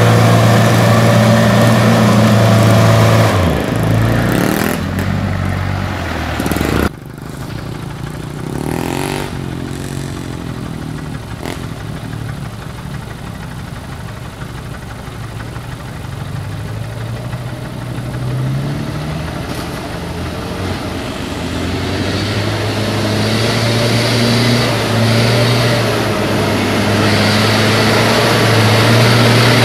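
Mitsubishi Fuso trucks' diesel engines working through deep mud. An engine is held at high revs at first, then after a cut at about seven seconds a quieter stretch follows with some revving. Near the end an engine's revs rise again and hold as a truck pushes through the mud.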